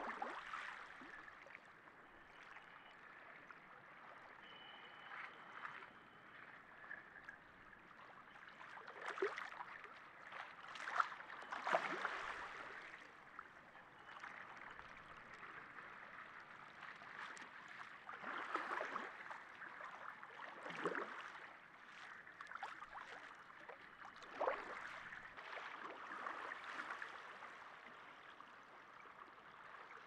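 Small harbour waves lapping and sloshing, with irregular swells of water noise every few seconds.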